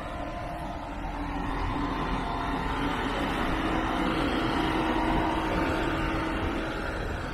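Twin-turbo V6 of a Mercedes-AMG GLE 43 idling with a steady hum, growing louder for a few seconds in the middle and then easing.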